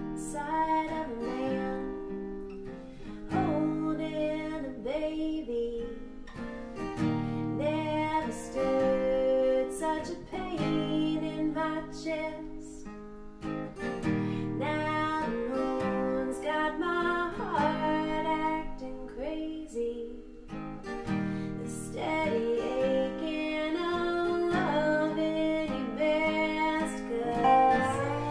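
Acoustic guitar and dobro playing an Americana song's instrumental opening, guitar chords under a dobro slide line with gliding notes.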